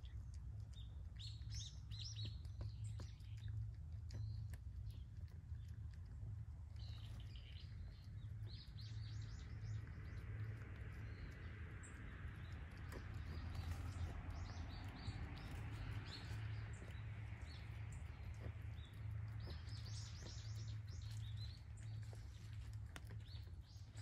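Small birds chirping in short high bursts, in several spells, over a steady low hum. Faint clicks of cats eating from bowls come through in between.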